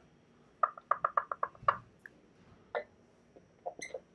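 Dry-erase marker squeaking on a whiteboard in a quick run of short writing strokes about a second in, then a few scattered strokes near the end.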